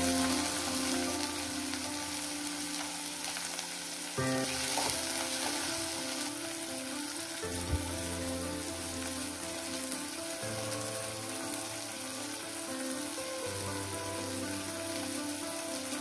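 Chopped onion, tomato and green chilli sizzling steadily in hot oil in a kadai, with a single knock a little before the middle. Soft background music with held notes runs underneath.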